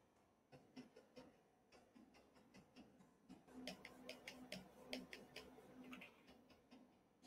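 Near silence broken by faint, irregular clicks and taps from a computer input device being worked during photo editing, busiest about halfway through.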